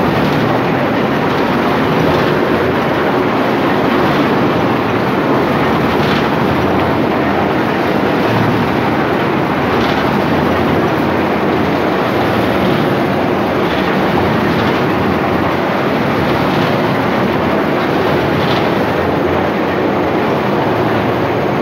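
An areca nut processing machine running with a steady, loud mechanical rattle and rumble, with a faint click every few seconds.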